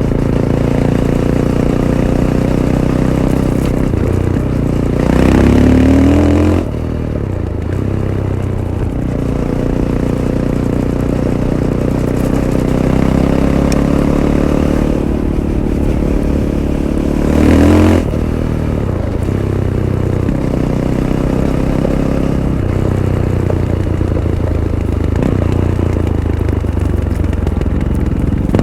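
Fantic Caballero 500's single-cylinder engine through its stock Arrow exhaust, running steadily under throttle. It revs up twice, about five seconds in and again near the eighteen-second mark, rising in pitch and then dropping off sharply as the throttle closes.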